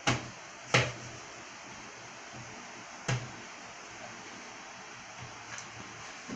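A baby's hands slapping against a tall white wooden furniture panel as she steadies herself walking along it: two sharp knocks in the first second and a third about three seconds in.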